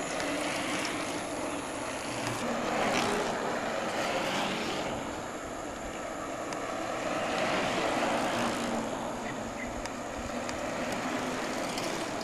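Mountain bikes rolling past on a paved road: a rushing tyre-on-tarmac noise that swells twice, about three and eight seconds in, as riders pass close, with a few faint clicks later on.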